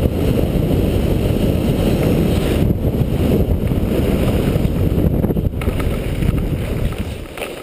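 Rushing wind noise on a GoPro's microphone, with skis running over groomed snow during a fast downhill run. It dies down near the end as the skier slows.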